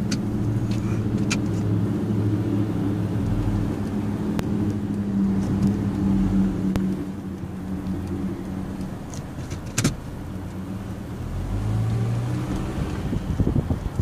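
A 2011 Nissan Altima creeping slowly, heard from inside as a steady low hum. The hum fades about seven seconds in and swells again near the end, with one sharp knock about ten seconds in.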